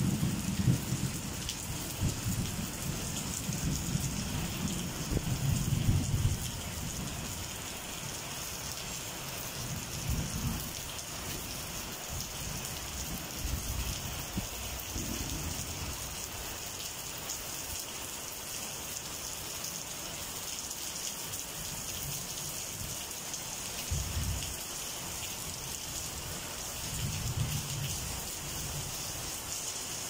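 Steady rain falling, a constant hiss, with low rolls of distant thunder. The thunder is heaviest in the first several seconds, fades, and rumbles briefly a few more times later.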